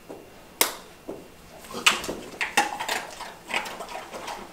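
A few sharp, irregular clicks and rustles of a cardboard box of dog treats being handled, as treats are taken out for a dog.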